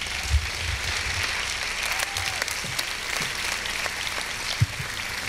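Audience applauding steadily, with a couple of low thumps, one about half a second in and one near the end.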